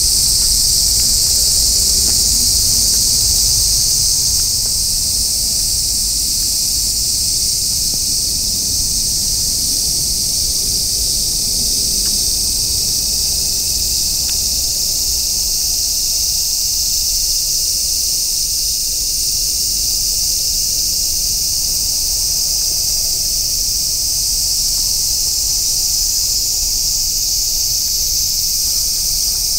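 Loud chorus of insects, a dense, steady high-pitched buzzing that does not let up, with a low rumble underneath.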